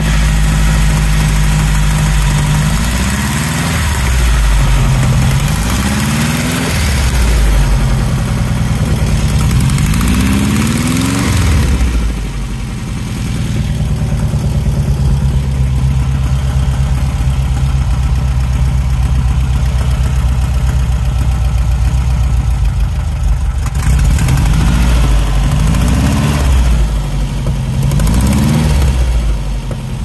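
Newly built 1680 cc dual-port air-cooled VW flat-four in a 1974 Beetle, running during break-in with a big exhaust leak that cannot be pinpointed. It runs steadily, and its revs rise and fall several times in the first dozen seconds and again near the end.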